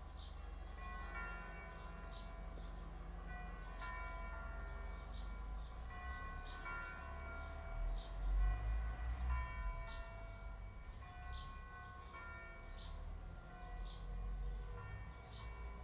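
Church bells ringing: several bells struck in turn, about one stroke a second, each tone ringing on and overlapping the next.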